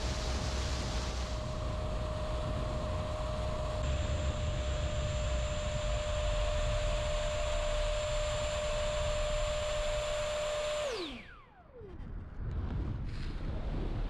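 Electric ducted fan of an Avanti V3 RC jet, heard from a camera on board, whining at a steady high pitch under power. About eleven seconds in the throttle is cut: the whine drops quickly in pitch and fades, leaving a soft rush of air.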